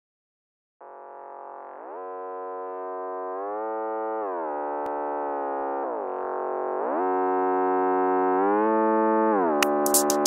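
Intro of a Frenchcore electronic track: a synthesizer lead holds notes and glides up and down between them, swelling steadily louder. Sharp percussion hits come in near the end.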